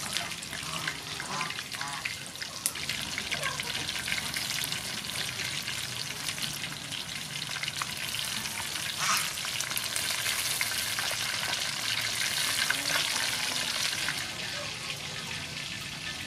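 Battered chicken wings deep-frying in a wok of hot soybean oil: a dense, steady crackling sizzle, louder for a few seconds from about nine seconds in.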